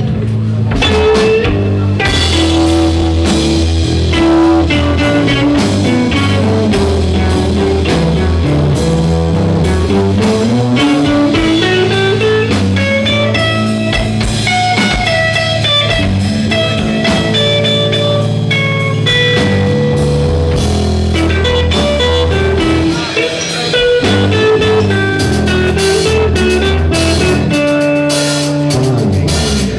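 Live rock band playing: electric guitar over bass guitar and drum kit, with a long, slow rising slide in pitch between about eight and fourteen seconds in.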